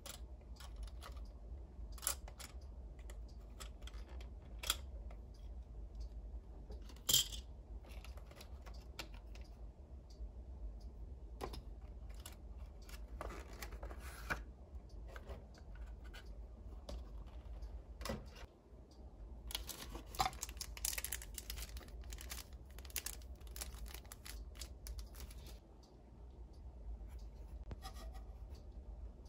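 Hands unpacking small plastic toy pieces: scattered clicks and taps of hard plastic, with crinkling packaging rustle for a few seconds about two-thirds through, over a steady low hum.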